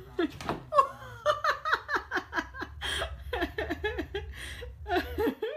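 A person laughing hard, a rapid string of short peals that rise and fall, breaking off abruptly near the end.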